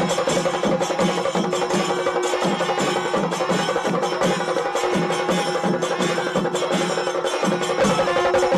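Percussion music: fast, evenly repeated drum strokes with a steady held tone sounding above them.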